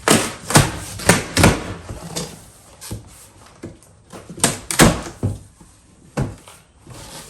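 Thumps, knocks and scraping from a large cardboard box and its packing being handled and pulled open, as when unboxing. There is a burst of loud knocks in the first two seconds, then another cluster about four and a half seconds in.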